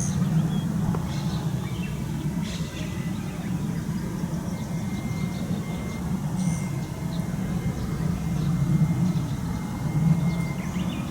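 Steady low rumble of vehicles running, with a faint steady whine through the second half and a few short bird chirps.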